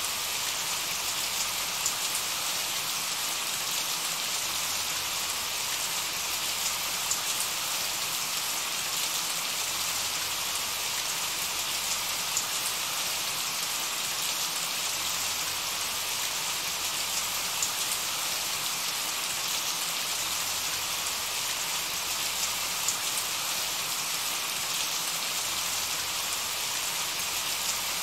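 Steady rain falling, an even, unbroken patter, with a few single louder drop hits standing out now and then.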